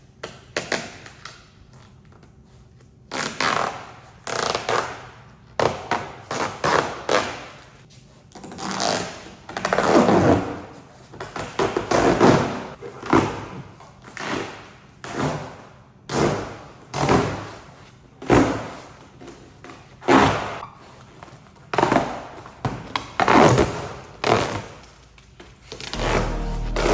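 Paint protection film being peeled off a car's painted front end in a series of pulls, each a ripping swish of about a second, repeated every one to two seconds.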